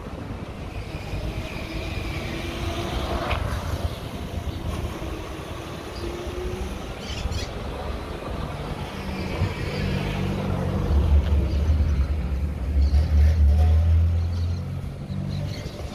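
Street traffic: a motor vehicle's engine passes close by, its low rumble building through the second half, loudest for a few seconds, then easing off near the end.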